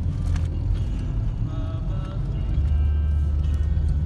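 Low, steady rumble of a taxi car driving through city traffic, heard from inside the cabin, with faint music over it.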